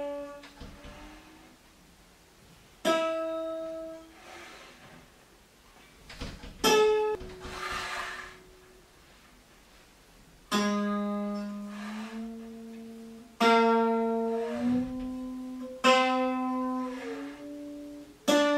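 PHYWE monochord's single string plucked six times, each note ringing out and fading. On several of the later notes the pitch slides to a new note while the string is still sounding, as the movable bridge is shifted under it.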